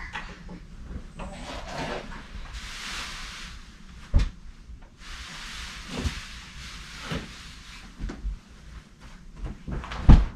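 Bedding rustling as blankets and pillows are pulled out of a crib and dropped onto a bed, with a few thumps, the loudest about four seconds in and near the end.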